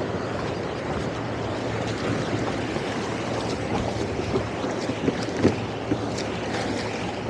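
Towboat's twin outboard engines running under a steady low hum, with water washing along the hull and wind on the microphone. A few short knocks about five seconds in.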